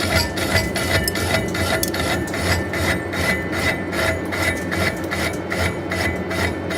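Metal lathe running, its cutting tool scraping against the spinning workpiece in a steady rhythm of about four or five strokes a second, over a low motor hum.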